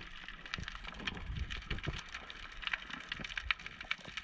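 Underwater sound picked up by a submerged camera: dense, irregular crackling and clicking, with a few dull low thumps.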